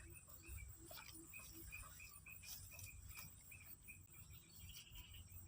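Near silence: faint outdoor ambience with a small animal chirping quickly and evenly, about three to four short chirps a second, over a steady faint high hiss.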